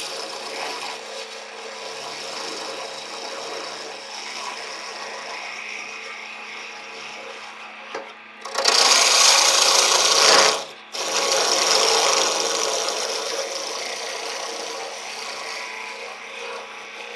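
Wood lathe spinning a cherry chair rung while a turning tool cuts a chamfer at the tenon shoulder: a steady hiss and rasp of the cut, much louder for about two seconds around the middle, breaking off briefly and then resuming and fading.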